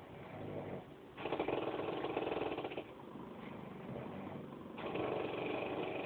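A woman snoring, each snore a buzzing rattle that sounds like a speedboat. Two long snores, one about a second in and one near the end, with quieter breathing between.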